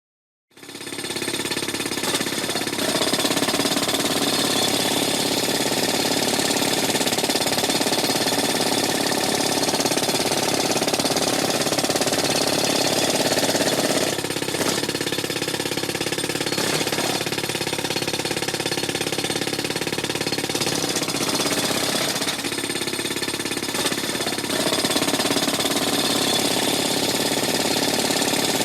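Pneumatic jackhammer hammering continuously in rapid blows, starting about half a second in, with small shifts in tone a few times.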